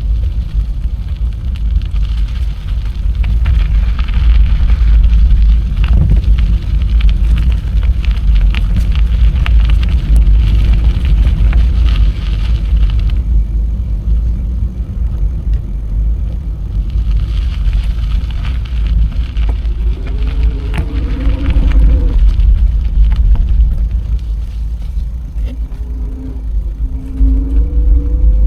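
Wind buffeting the microphone with the steady rumble of a bicycle riding along, and a hiss of tyre noise that fades and returns. Short pitched sounds come in twice in the last third.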